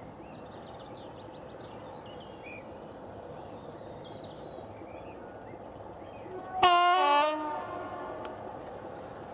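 Diesel locomotive horn, from Class 25 D7612, sounding once about two-thirds of the way in: a loud, sudden blast of about a second that drops to a lower, fainter tone and dies away. Birds chirp faintly before it.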